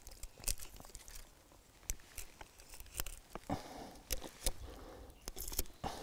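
Knife cutting and scraping into the bark of a fallen pine log: an irregular scatter of small cracks, snaps and scratchy crackles as the bark is scored to test whether it will still peel.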